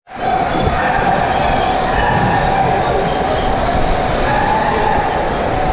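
Loud steady rush of water pouring through a water-slide loading pool, mixed with the echoing din of an indoor waterpark.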